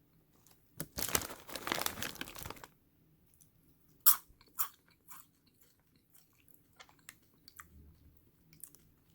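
A person biting and chewing crunchy fry-shaped snack chips: a dense stretch of crunching about a second in, two sharp crunches around four seconds in, then a few faint ticks.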